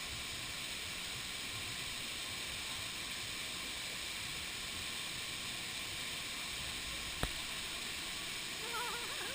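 Steady rushing of a waterfall, an even hiss with no changes, broken once by a single sharp click about seven seconds in.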